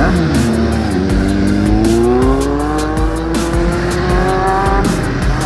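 Several motorcycle engines passing close by in succession, their pitch dropping quickly as each one goes past. One engine then accelerates with a slow, steady rise in pitch over several seconds.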